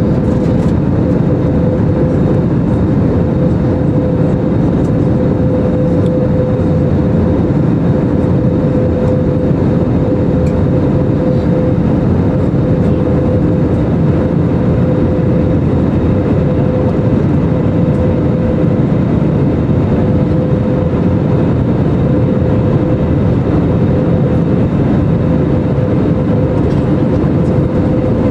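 Steady in-flight cabin noise of an Airbus A320neo heard from a window seat: a constant rush of airflow and rumble from its CFM LEAP-1A engines, with one steady hum held above it.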